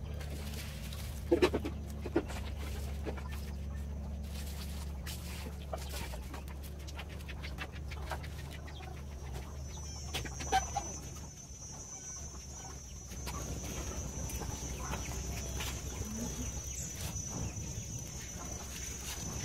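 Chickens clucking a few times, loudest about a second in and again about halfway, over the light crackle of dried palm leaves catching fire in a clay stove.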